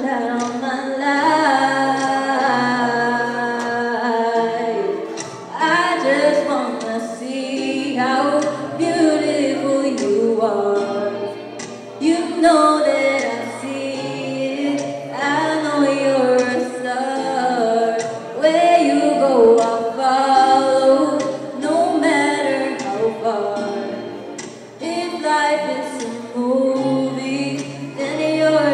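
A young woman singing a solo ballad through a handheld microphone and PA, holding long notes and gliding between them, over a soft instrumental backing with steady low notes.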